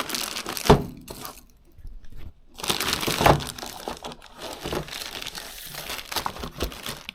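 Plastic packaging crinkling and rustling as accessories are taken out of the box, with sharp crackles about a second in and again about three seconds in, and a brief lull in between.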